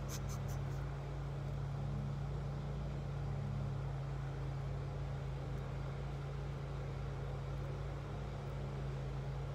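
Steady drone of a lawn mower engine running, with a few quick faint clicks right at the start.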